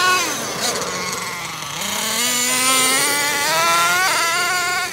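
Thunder Tiger Sledge Hammer S50 1/8-scale nitro RC truggy's small glow-fuel engine revving at high pitch. The pitch drops at first, then climbs steadily from about two seconds in as it accelerates, with a short dip near the end.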